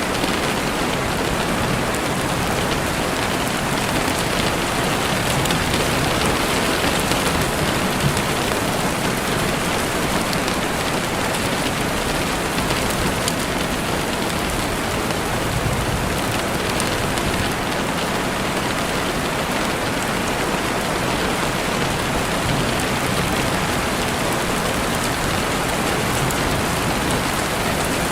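Steady rain falling, a constant dense hiss with scattered faint ticks of drops.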